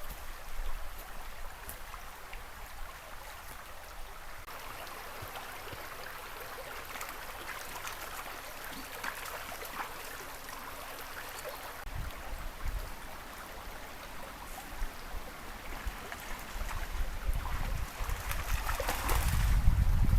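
Steady rushing, splashing noise of moving water, with scattered crackles and a louder low rumble building near the end.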